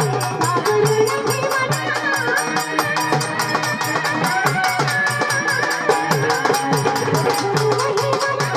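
Marathi folk music: a fast, steady percussion beat under a wavering high melodic line.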